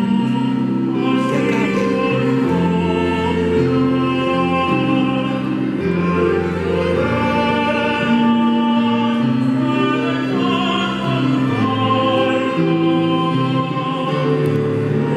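Tenor singing a hymn with violin and an electronic keyboard played as an organ, in slow sustained notes over steady low bass tones.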